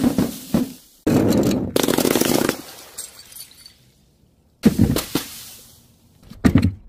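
Powder-filled balloons dropped onto paving slabs and bursting on impact. A few sharp knocks come first, then a sudden rush of noise for about a second and a half, and after a brief lull one hard smack that dies away, with more knocks near the end.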